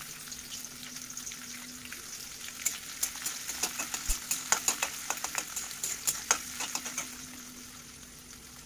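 Chopped onions sizzling in hot oil in a steel kadai, frying until they turn reddish. From about two and a half to seven seconds in, a spatula stirring them clicks and scrapes against the pan.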